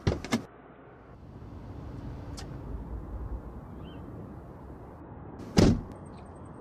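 Two quick sharp knocks, then about five and a half seconds in a car door shuts with a heavy thump, over a steady low street rumble.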